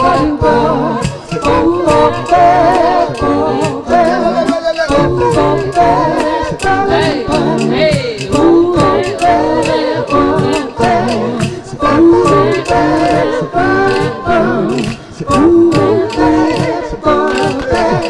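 Vocal improv group singing together in harmony, several men's and women's voices at once, over a steady percussion beat.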